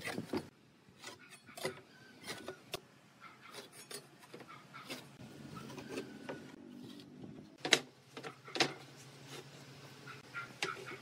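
Light handling sounds of a steel ruler and pencil on wooden boards: scattered taps, clicks and rubbing, with two sharper clacks about eight seconds in.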